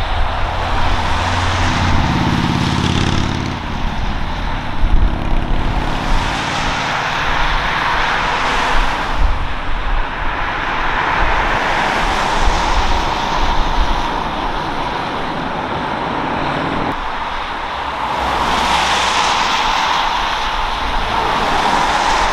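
Airbus A380 jet engines heard across the airfield during landing and rollout on a wet runway: a continuous jet roar with a steady whine in it, swelling and easing several times, with low rumble strongest early on.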